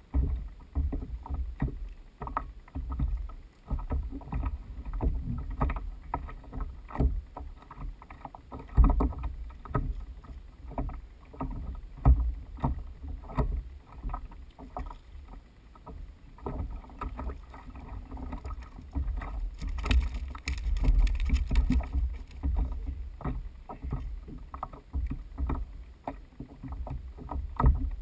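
Irregular knocks and bumps on a kayak with water sounds and a steady low rumble, picked up close by an action camera.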